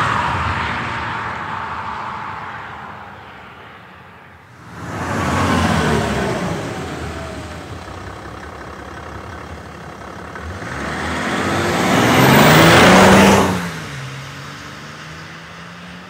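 BMW 530d E60 with its three-litre straight-six diesel driving past repeatedly. One pass fades away, a second comes on quickly about five seconds in and falls in pitch as it goes away, and a third builds to the loudest point near thirteen seconds, then cuts off sharply, leaving a steady low engine hum.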